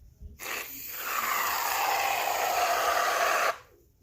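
Aerosol can of shaving foam spraying: a steady hiss held for about three seconds that starts and cuts off suddenly.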